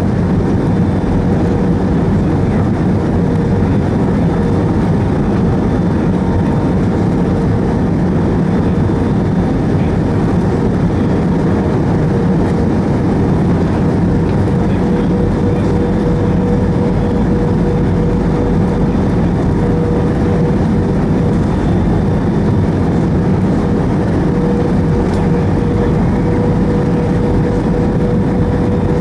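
Steady cabin noise aboard an Airbus A320: a constant rumble of engines and airflow, with a thin steady whine running through it that grows stronger about halfway through.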